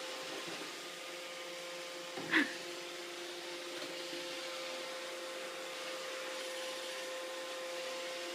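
Roomba robot vacuum running with a steady hum and hiss; about two seconds in, one short high squeal rises over it.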